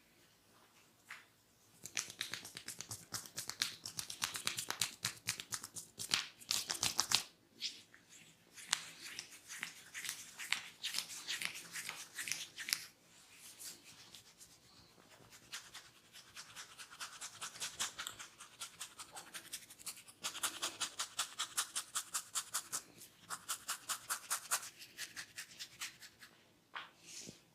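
Hair being rubbed and scratched between fingers against the scalp, giving rapid dry crackling, as in ASMR hair cracking. It comes in several runs of a few seconds each, with short pauses between them.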